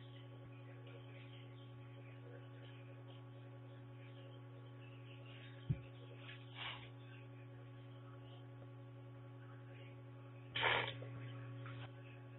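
Steady electrical hum from a small recording camera, with a sharp click about six seconds in and a brief louder burst of rustling noise near the end.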